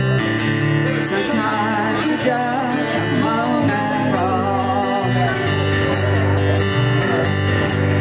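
Live acoustic guitar strumming over a bass guitar line, with a voice singing a melodic line from about a second in to around five seconds.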